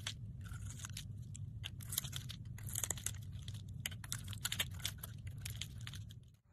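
Flat metal blade shaving and cutting into a crumbly bar of soap, giving quick crisp crackles and crunches as flakes and chunks break away, over a low steady hum.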